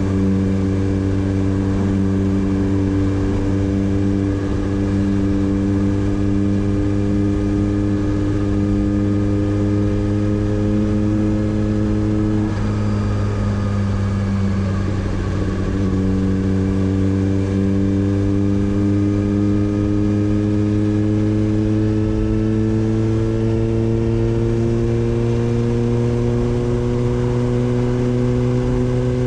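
Motorcycle engine running steadily under way, its pitch creeping up. About halfway through it eases off briefly and then pulls again, slowly rising.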